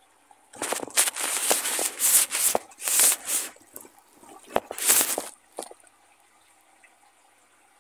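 Liquid splashing in a handheld plastic bottle of water and soap, in a run of loud, irregular bursts that stop about five seconds in.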